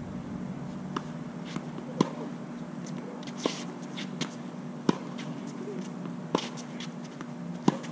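A tennis ball being struck by racquets and bouncing on a hard court during a rally. It makes a string of sharp pops about every second or so, some loud and some faint.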